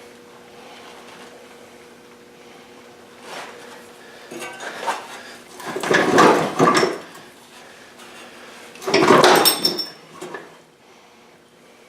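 Metal clanking and rattling in two loud bursts, one about six seconds in and one about nine seconds in, with a metallic ring, over a faint steady hum.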